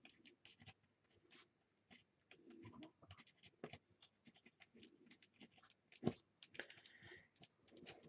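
Faint scratching and small taps of a white pen being worked over textured paper, with one sharper click about six seconds in.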